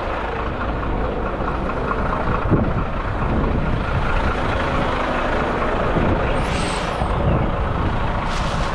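Heavy truck's diesel engine running steadily, with a brief high hiss about six and a half seconds in.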